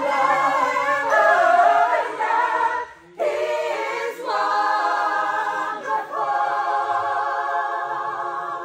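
A choir singing a cappella in close harmony, with long held chords; the singing breaks off for a moment about three seconds in and resumes.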